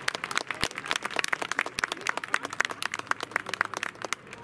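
Crowd applauding, many hands clapping at once, thinning to a few scattered claps near the end.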